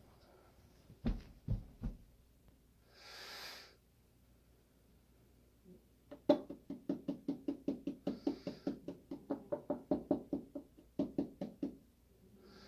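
Knife chopping vegetables on a cutting board. Three dull thumps come about a second in, then from about halfway a quick run of chops at about four to five a second, with a short break near the end.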